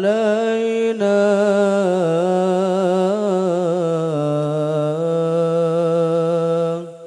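An amplified male voice chanting an Islamic devotional chant: one long, drawn-out melodic phrase whose pitch wavers and steps down a couple of times, breaking off near the end.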